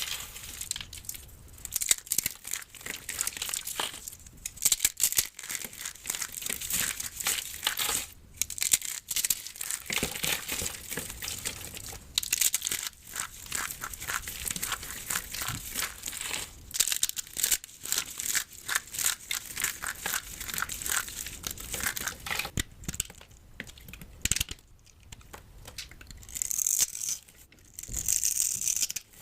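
Dry bar soap being broken up: a dense, continuous run of crisp crackling and crunching.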